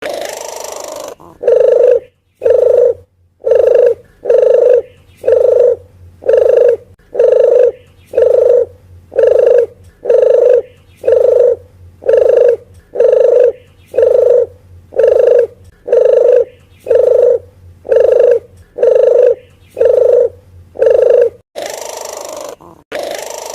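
Recorded lure call of a puter geni collared dove: a fast, even string of short coos, about three every two seconds. A softer, hoarser call comes at the start and again near the end.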